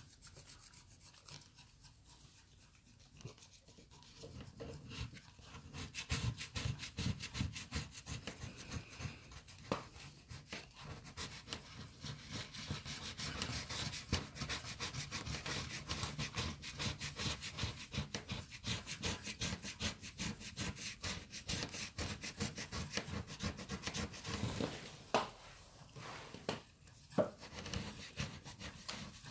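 Scratch-off lottery tickets being scratched with the edge of a plastic card, the silver coating scraped off in rapid back-and-forth strokes. It is faint for the first few seconds and then runs on busily, with a few harder strokes near the end.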